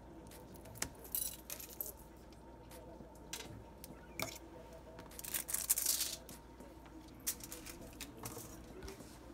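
Metal fork tines clicking and scraping against aluminium foil as the edges of empanada dough are crimped, with the foil crinkling; a longer, louder crinkle about five to six seconds in.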